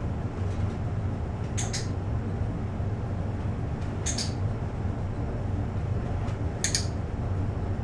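Dog-training clicker clicked three times, a couple of seconds apart, each a quick double click, marking the dog's position at heel for a reward. A steady low hum runs underneath.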